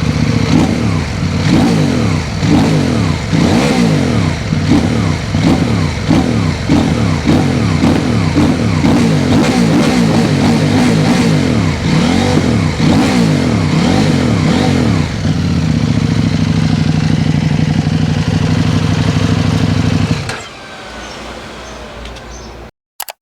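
CFMOTO 800MT Touring's parallel-twin engine through a LeoVince aftermarket exhaust, revved in many quick blips that rise and fall, then idling steadily for about five seconds before it is switched off near the end.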